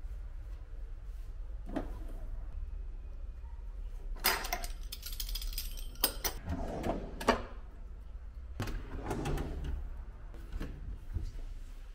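Kitchen drawers sliding open and shut, with metal cutlery clattering in a drawer for a couple of seconds about four seconds in, over a steady low hum.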